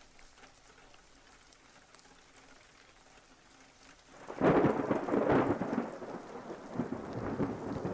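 Near silence, then about four seconds in a thunderclap breaks suddenly and rumbles on under steady rain: a thunderstorm sound effect.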